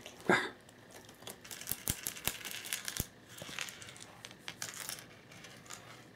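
Fabric cat play tunnel crinkling and rustling, with scattered sharp clicks, as a cat scrambles inside it and shifts it across the floor. A short loud voice-like sound comes just after the start.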